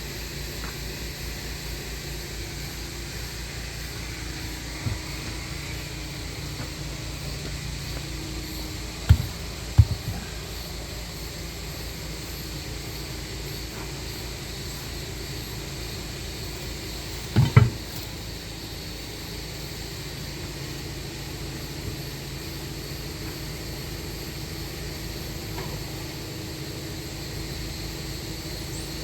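An engine idling steadily with an even low pulsing, broken by a few sharp loud knocks: two about nine and ten seconds in, and a quick double knock a little past halfway.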